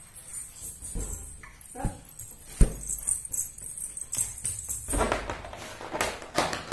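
Red rubber balloon bouncing on a tiled floor: a few light knocks, the sharpest about two and a half seconds in, then busier handling sounds as it is picked up near the end.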